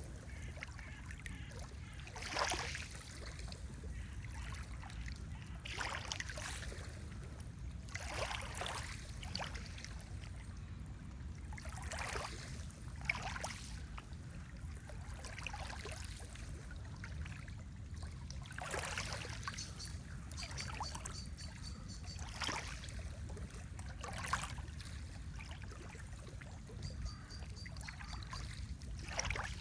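Lake water lapping in small waves, a soft splash every second or two over a steady low rumble. Faint high bird chirps come in twice, past the middle and near the end.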